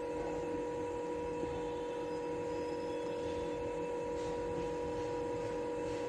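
Steady electrical hum made of a few level tones, even and unchanging throughout.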